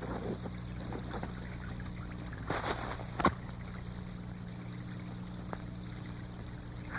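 Melting snow trickling and dripping softly, with a short click about three seconds in, over a steady low hum.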